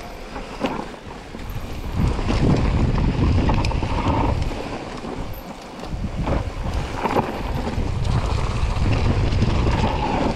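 Wind buffeting the microphone during a fast mountain-bike descent, with the bike rattling and knocking over rough trail. The rush swells twice, dipping briefly in the middle.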